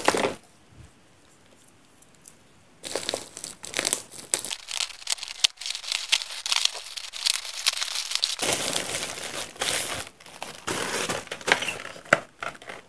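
Plastic courier mailer bag and its packing tape crinkling and tearing as the bag is ripped open by hand. After a quiet first few seconds comes a dense run of irregular crackling that lasts almost to the end.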